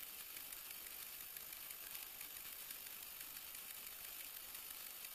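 Faint rustling and scraping of dry esparto grass strands handled and crossed over in a hand-plaited braid, with small ticks over a steady hiss.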